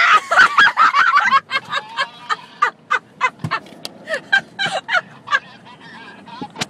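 A woman shrieking and then laughing in short, high-pitched bursts about four times a second: a reaction to the car's hard emergency stop. The shriek is loudest in the first second and a half.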